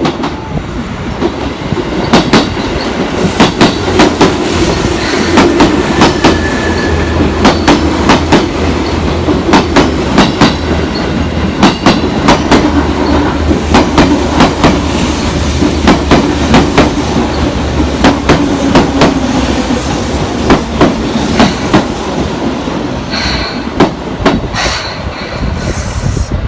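Seibu Railway electric train running: a steady low rumble with the clickety-clack of its wheels crossing rail joints, sharp clicks coming in pairs and small groups every second or so.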